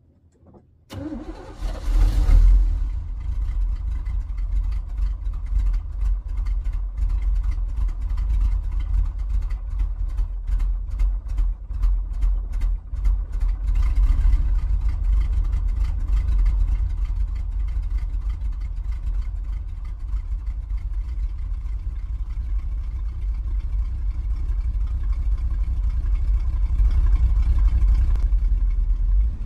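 Big-block Chevy V8 of a 1980s Chevy K30 dually truck starting about a second in, revving briefly, then idling steadily as it warms up after years parked.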